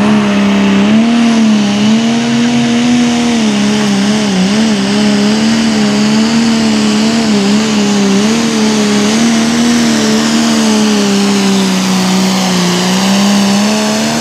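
Super stock pulling tractor's turbocharged diesel engine running flat out as it drags the weight-transfer sled down the track. The engine note holds high and loud, wavering up and down in pitch through the middle of the pull.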